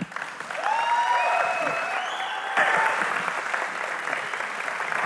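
Audience applauding, a dense steady clapping that starts at once and holds level.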